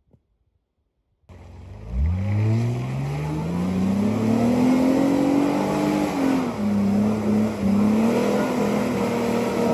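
Honda Ridgeline pickup's V6 engine revving hard as the truck pushes through deep mud: the sound starts about a second in, climbs steadily in pitch for several seconds, dips briefly, then holds high with small wavers.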